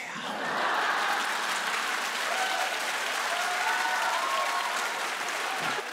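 Studio audience laughing and applauding, starting suddenly and holding steady, with a few high voices of laughter over the clapping.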